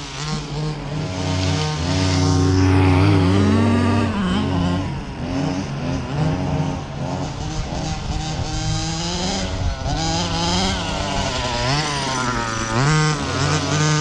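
Small two-stroke engine of an RC buggy running and revving, its pitch rising and falling over and over as the buggy is driven across the grass.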